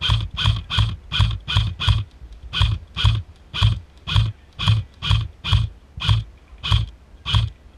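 Airsoft electric gun firing a steady string of semi-automatic shots, about two a second, each a short sharp mechanical clack.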